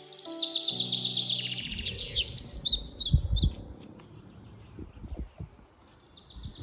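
Small birds chirping and trilling in quick runs of high notes, strongest in the first three and a half seconds and again near the end. Background music notes stop about a second and a half in, and a few low thumps come around the middle.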